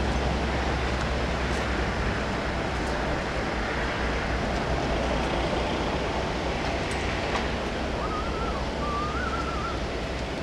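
Low rumble of a diesel locomotive, likely a Class 66, approaching slowly under a steady rushing outdoor noise; the rumble eases about two seconds in. A thin wavering whistle sounds twice near the end.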